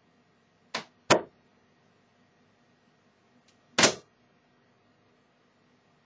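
22-gram tungsten Coppertone darts thudding into a dartboard: three short sharp hits, two in quick succession about a second in and a third near four seconds.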